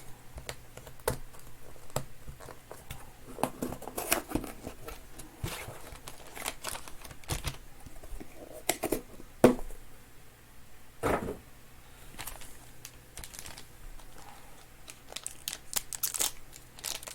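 A box of sports cards being unpacked by hand: plastic packaging crinkling and tearing, with scattered clicks and rustles as the contents are handled.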